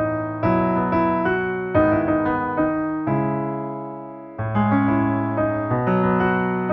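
Background music: piano chords struck one after another and left to fade, with a longer held chord near the middle.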